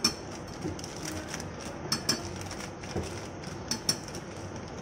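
A small metal spoon clinking and tapping a few times at scattered moments as cornflour is spooned into a glass of milk.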